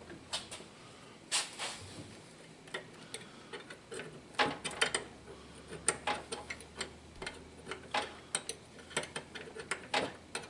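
Irregular light clicks and ticks, one or two a second, from hand tools and parts being handled, over a faint steady hum.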